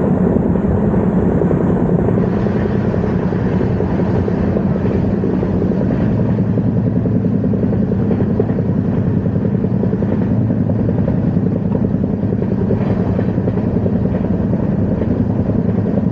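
Passenger express train running along the line, a steady loud rumble with a low hum and no break.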